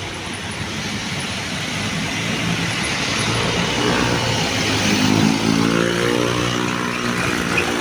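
Busy street traffic with vehicles driving past. One vehicle's engine hum grows louder through the second half and passes, its pitch rising then falling.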